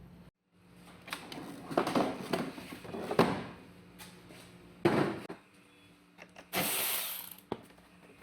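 Hand tools and metal parts being worked on a car engine during a strip-down: irregular clicks, clinks and knocks, a sharp knock about five seconds in, and a short burst of hiss near the end.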